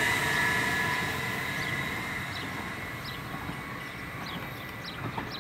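Stadler FLIRT electric multiple unit pulling away after passing: a steady two-pitch whine from its traction equipment over the rumble of wheels on rail, fading steadily as it recedes.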